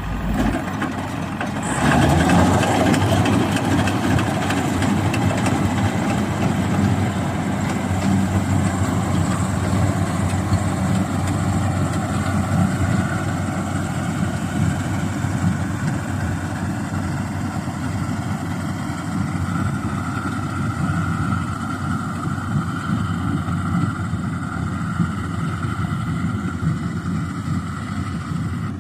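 Engine of a rice-harvesting machine running steadily, getting louder about two seconds in.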